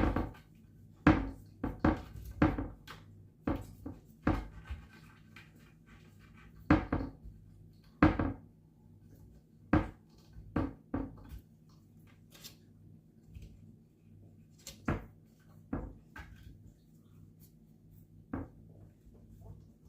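A series of irregular knocks and clatters of hard objects, about fifteen of them with pauses of up to a few seconds between, over a faint steady low hum.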